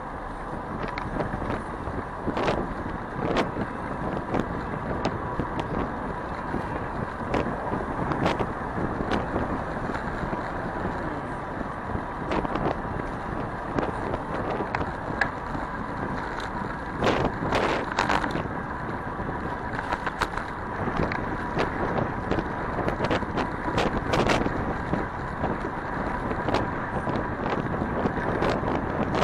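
Wind buffeting the microphone of a camera riding on a bicycle in city traffic, with road noise and frequent short clicks and knocks throughout.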